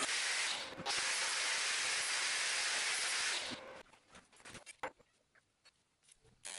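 A steady hissing noise that cuts off about three and a half seconds in, then a few light metallic clinks as small aluminium pieces are set down on a steel welding table.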